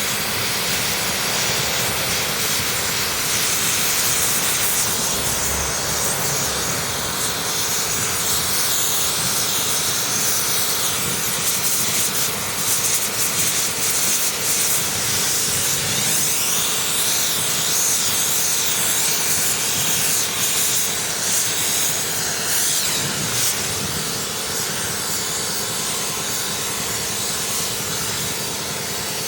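Steady, loud rushing hiss of air being blown through a clogged two-stroke silencer while the unburnt oil and carbon inside burn off.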